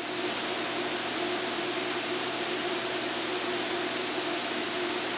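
Steady in-flight cockpit noise of an Extra 300L aerobatic airplane: an even hiss with a faint, steady hum underneath.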